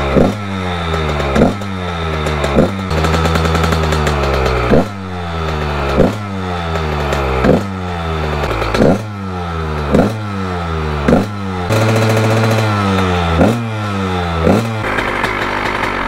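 Honda CR125 two-stroke single-cylinder engine revved in short throttle blips, about one every second and a half. Each rises sharply and falls back to a high idle, and the engine cuts out about fifteen seconds in. The owner says the idle is a little high and that the engine is flooded and may be out of fuel.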